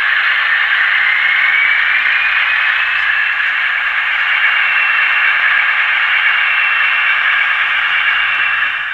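Class 28 diesel engine sound from a DCC sound decoder in an OO gauge model locomotive, played through the model's speaker: a loud, hissy running note with a whine that rises in pitch over the first few seconds, then holds steady and cuts off near the end.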